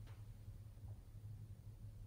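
Near silence: room tone with a steady low hum and a faint click just at the start.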